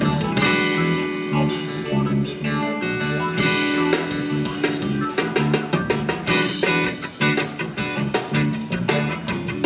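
A live zydeco band playing an instrumental groove with no vocals: electric guitars, bass and drum kit over a repeating bass line and a steady drum beat.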